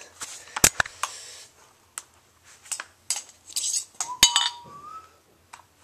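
Sharp clicks and metallic clinks from a KWA LM4 gas blowback airsoft rifle being handled as it is opened up, mixed with knocks from the camera being moved and set down. The loudest clicks come just under a second in and a little after four seconds.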